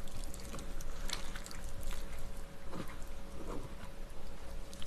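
Sauce-dressed glass noodles, vegetables and shrimp being tossed and mixed by a gloved hand on a plate: soft, irregular wet squishes.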